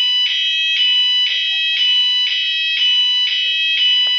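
Cooper fire alarm sounders sounding in alarm: a loud, shrill pulsing tone at about two pulses a second.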